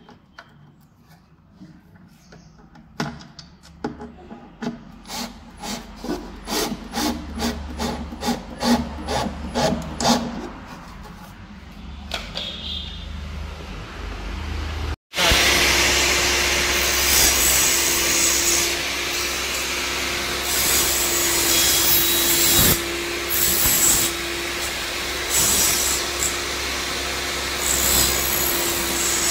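A run of sharp clicks while boxes are screwed to a wooden stand. About halfway through, a table saw starts running. It cuts into a piece of timber in several passes to form a notch, and these cutting passes are the loudest part.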